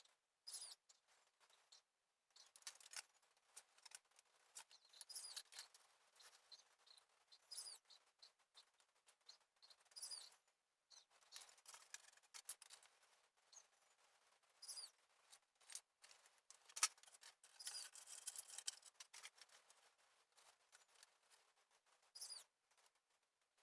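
Irregular scratching and squeaky strokes of polyfoam being worked by hand, in short bursts with pauses, a few louder squeaks near the middle.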